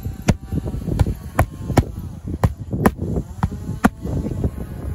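Hammer driving roofing nails into architectural asphalt shingles: a run of sharp strikes, about two a second and unevenly spaced.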